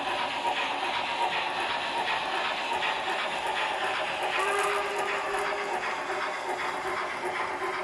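H0-scale model BR 44 steam locomotives and a long freight train running past: a steady rolling and running noise with many small clicks from wheels on track. About halfway through, a brief steady tone sounds for about a second.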